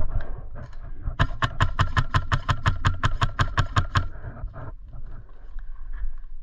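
Airsoft rifle firing a rapid string of about twenty shots, roughly seven a second, lasting about three seconds.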